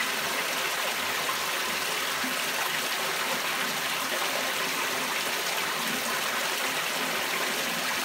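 Water pouring out of the inlet pipe onto the fleece belt of a homemade fleece filter and splashing into the filter trough: a steady rushing and splashing that stays even throughout.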